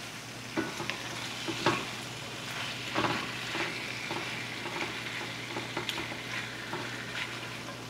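Sliced venison sizzling gently in a cast iron skillet over low-medium heat, stirred and scraped with a silicone spatula. Scattered soft knocks of the spatula against the pan come through the steady sizzle.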